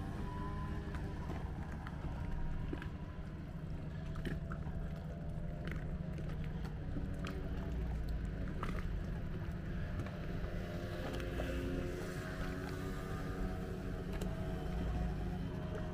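A boat's engine running steadily at a low pitch, with light clicks now and then.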